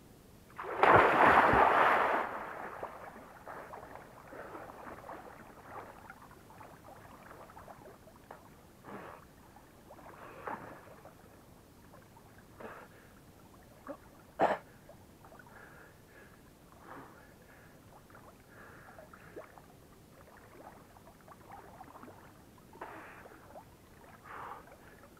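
A person plunging into a lake with a loud splash about a second in, followed by water sloshing and lapping as he swims, with short splashes from his strokes now and then, a few of them near the end.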